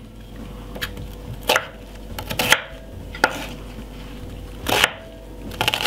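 Chef's knife chopping a white onion on a wooden cutting board: about half a dozen sharp, unevenly spaced knocks of the blade through the onion onto the board.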